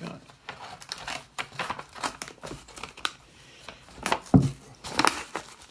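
Kraft paper mailing envelope and its packing crinkling and rustling as it is handled and torn open by hand, in irregular rustles that are loudest about four seconds in.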